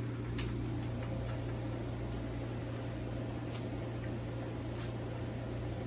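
A steady low machine hum with faint noise over it and a few small ticks.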